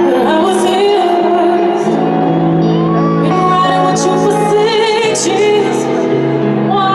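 Music with a sung line: held chords that change every few seconds, a wavering vocal melody on top, and a few short noisy hits.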